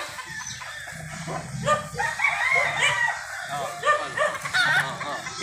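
Gamecocks crowing, short calls coming again and again and overlapping one another.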